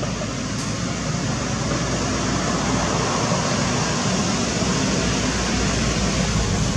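Steady rushing noise: a continuous hiss with a low hum beneath, with no distinct events.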